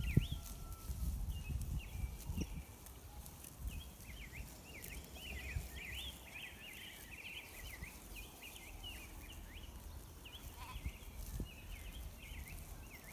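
Pasture ambience: many small birds chirping on and off throughout, over a low rumble of wind on the microphone.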